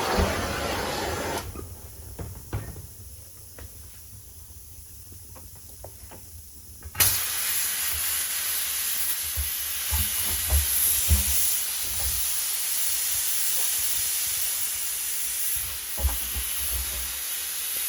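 Gas hissing under pressure: a short hiss at the start, then a loud, steady hiss that begins suddenly about seven seconds in and keeps going, with a few knocks and thumps.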